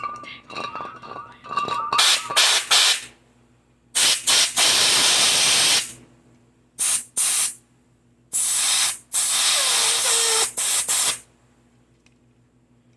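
Repeated hissing blasts, several short ones and two long ones of about two seconds each, from carburetor cleaner and compressed air being sprayed through a lawn mower carburetor's varnish-clogged bowl nut.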